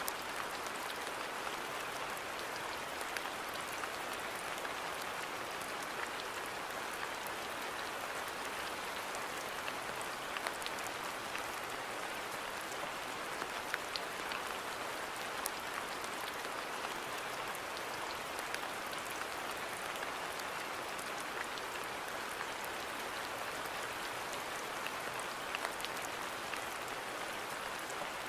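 Steady rain falling in a garden, an even hiss scattered with many individual drops ticking on surfaces.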